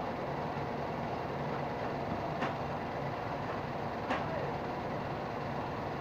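Steady background traffic noise, with two short sharp clicks about a second and a half apart.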